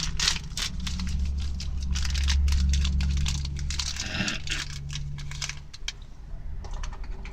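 Plastic snack wrapper of a Pepero pack being torn open and crinkled, with many small crackles and clicks, over a low steady rumble.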